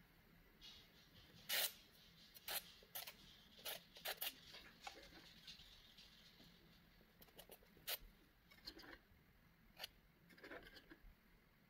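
Steel palette knife spreading thick acrylic paint across textured paper: faint, irregular scrapes and small clicks.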